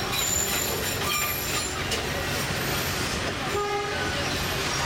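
Scenic-railway tourist train running, heard from an open-air passenger car: a steady rumble of the cars on the track. A short pitched tone sounds about three and a half seconds in.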